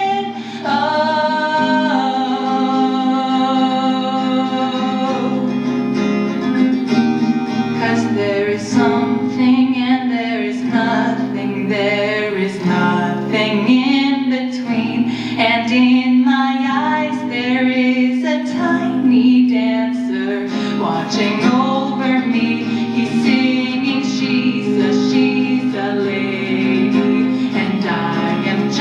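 A girl singing a song live, accompanying herself on acoustic guitar.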